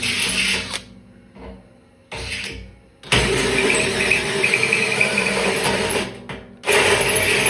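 DeWalt 20V cordless drill driving a hole saw into the steel wall of an old tank, the trigger let off and squeezed again: it runs briefly, stops for about two seconds apart from a short burst, then cuts steadily for about three seconds, pauses briefly and starts again near the end.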